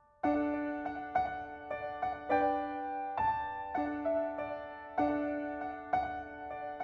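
Background music: piano or electric piano playing gentle struck chords, a new one about every half second, each ringing and fading.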